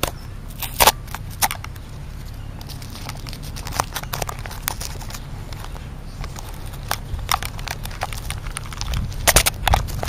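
Irregular crackling and clicking of a plastic snack bag and the camera being handled, over a steady low rumble. A quick run of louder clicks comes near the end.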